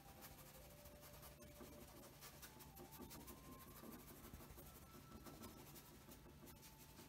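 Near silence, with faint scratching of a paintbrush working paint on a canvas.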